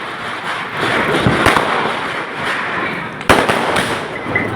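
Firecrackers going off: continuous crackling with a few sharper bangs, the loudest a little over three seconds in.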